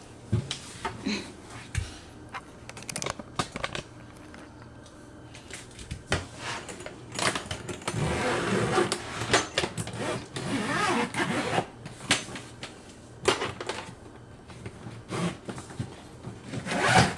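Hard-shell polycarbonate suitcase being laid down and handled, with a few knocks early on, then its YKK coil zipper being pulled open around the shell in rasping stretches from about seven seconds in.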